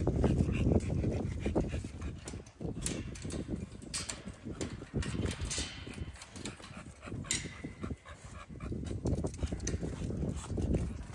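American Bully dogs making noise in a kennel, among scattered clicks and knocks, with a low rumble in the first couple of seconds.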